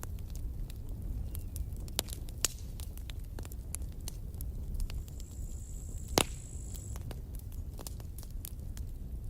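Campfire burning: a low steady rumble of flame with scattered sharp crackles and pops from the burning wood, the loudest single pop about six seconds in.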